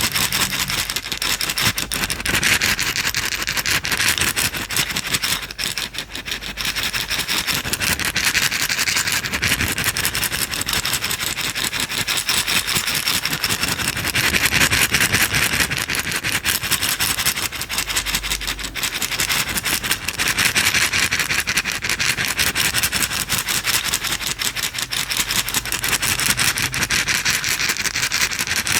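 Small, hard, dry pieces rattling inside a container that is shaken rapidly and continuously, a dense patter of tiny clicks that swells louder every five or six seconds.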